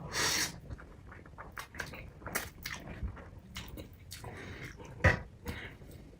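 Close-up eating of noodles: a short slurp at the start, then wet chewing with many small mouth clicks, and one sharp knock about five seconds in.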